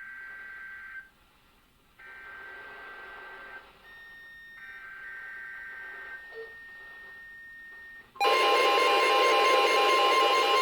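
NOAA Weather Radio EAS alert opening. A burst of SAME header data tones ends about a second in and two more follow, each a short buzzy warble about a second long. About 8 seconds in, the loud, steady 1050 Hz weather radio warning alarm tone starts suddenly, signalling that a severe thunderstorm warning is about to be read.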